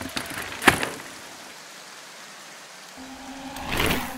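Advert sound effects after the music stops: a sharp hit just under a second in over a faint hiss, then a whoosh swelling to a peak near the end as a low steady hum comes in.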